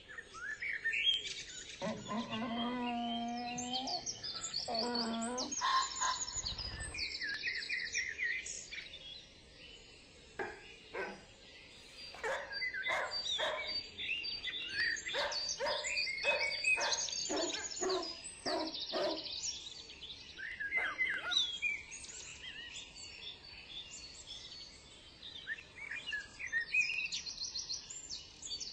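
Small birds chirping and calling, many short tweets overlapping, with a longer, lower animal call about two seconds in.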